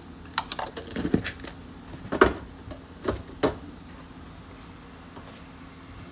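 Trading cards and plastic card holders being handled on a table: a cluster of light clicks and taps over about three seconds, the sharpest one near the middle, then it goes quieter.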